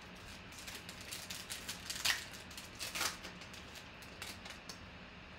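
Trading cards being slid and flipped through by hand: a run of soft, quick card clicks and rustles, the loudest about two and three seconds in.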